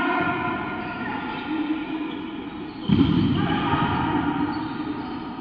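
Volleyball being played hard in a sports hall, with a sharp, loud hit on the ball about three seconds in, over steady background hall sound.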